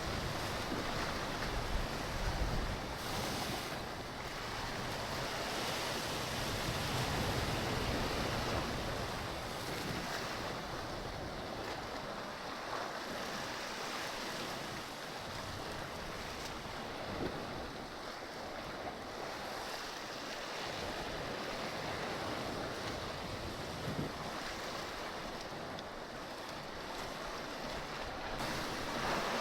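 Sea surf washing steadily against a rocky shore, with wind buffeting the microphone, strongest in the first few seconds.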